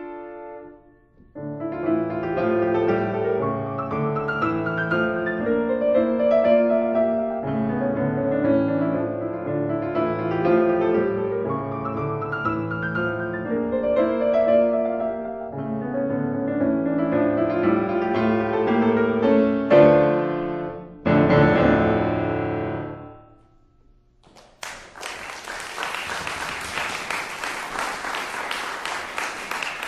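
Solo piano playing a classical-style piece that ends on a final chord about 21 seconds in and dies away. After a brief pause, applause breaks out and continues.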